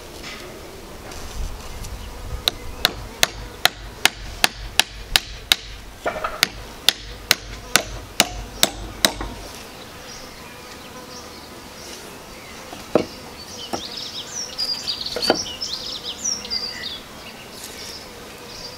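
Hammer driving a nail through a wooden hearth board into a chopping block: about twenty sharp knocks at roughly three a second, in two runs with a short pause between, then two single knocks later.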